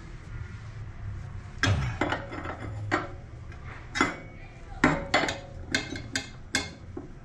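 Metal wrench clinking and knocking against a faucet fitting on a kitchen sink while the fitting is worked loose: about nine sharp metallic clinks at irregular intervals, starting about a second and a half in.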